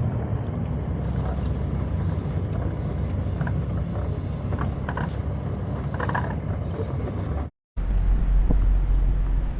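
Semi truck running with a steady low rumble. It cuts out for an instant near the end and comes back louder and deeper.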